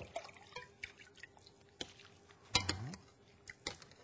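Water dripping and trickling through a fine-mesh strainer of rinsed raw oysters as it is lifted from a glass bowl of water to drain, with a brief louder sound about two and a half seconds in.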